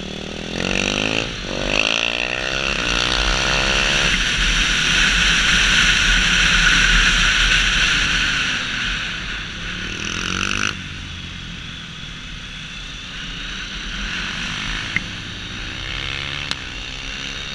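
Sport motorcycle ridden hard around a track, heard from the rider's own bike: the engine revs climb, with a gear change about a second in, and loud wind noise builds. About ten seconds in the throttle shuts suddenly and the engine runs quieter, then the revs rise again near the end.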